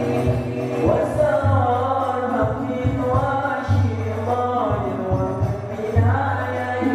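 Hadrah al-Banjari group: boys singing an Islamic sholawat together into microphones, over frame drums and a deep bass drum beating a repeating rhythm, all amplified through a PA system.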